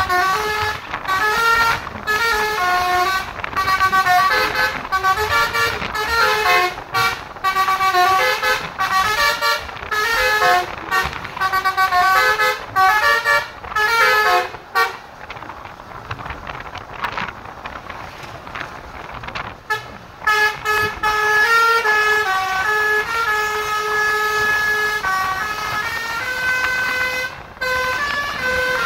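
Basuri multi-tone musical air horn on a Jetbus 5 SHD coach playing a tune in a fast run of stepped notes. About halfway through it pauses for a few seconds, then goes on with longer held notes.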